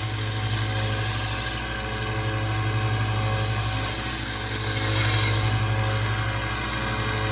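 Rikon 1x30 belt sander running steadily while a knife blade is ground freehand against the moving belt: two passes, one at the start and one about four seconds in, each a hissing grind of about a second and a half over the motor's hum.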